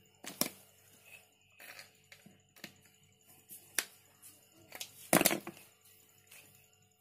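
Scattered clicks and knocks of tools and metal parts being handled during refrigerator repair work, with a louder clatter about five seconds in.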